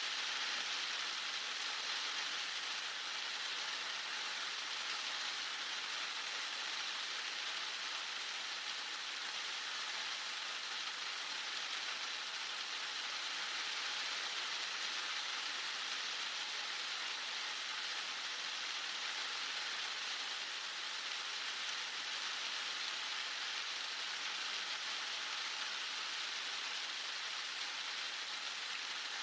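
Heavy rain falling steadily, a dense, even hiss of drops on surfaces with no let-up.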